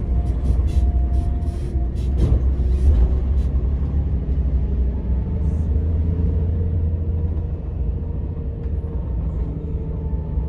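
Scania K124 IB coach's 12-litre straight-six diesel running under way, a deep steady rumble. Sharp rattling clicks come over it during the first few seconds.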